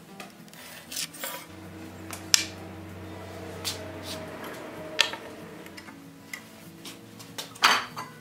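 Sharp knocks and clinks of wood pieces and tools being handled and set down on a workbench, the three loudest about two, five and seven and a half seconds in, over faint background music.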